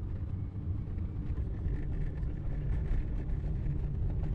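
Bus engine and tyres running with a steady low rumble, heard from inside the cabin as the bus descends a steep tunnel grade.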